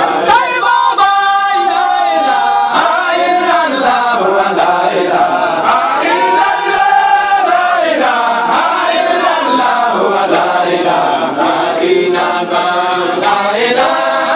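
A group of men's voices chanting together in a devotional chant, with long held notes that rise and fall.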